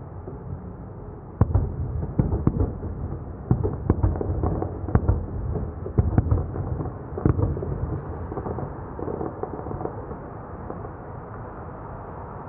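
Aerial fireworks going off: a rapid string of about a dozen sharp bangs over a low rumble, which fades after the last bang.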